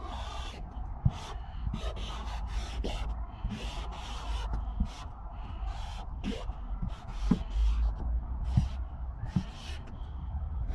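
Broad-nibbed Calligraffiti paint marker dragged across cardboard in a run of short scratchy strokes, each a fraction of a second long, with a few soft knocks and a low rumble underneath.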